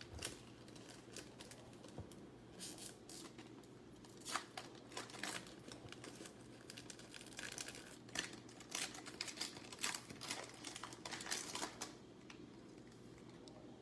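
A trading-card pack wrapper being torn open and crinkled, and the cards inside being handled: faint, scattered crinkles, rustles and small clicks that stop about two seconds before the end.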